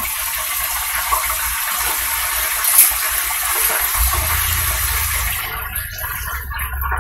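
Hot oil sizzling in an electric deep fryer with its lid open as buttermilk-battered chicken pieces fry, a steady loud hiss that thins out near the end. A low hum comes in about four seconds in.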